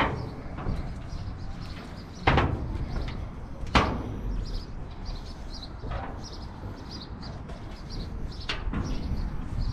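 A few sharp knocks or bangs, irregularly spaced, the loudest two about two and four seconds in, over a steady outdoor background with small high chirps like birds.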